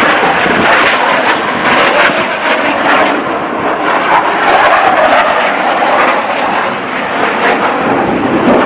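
US Navy Blue Angels F/A-18 Super Hornet jet flying past at an air show, its jet engines loud and steady with a rapid crackle throughout.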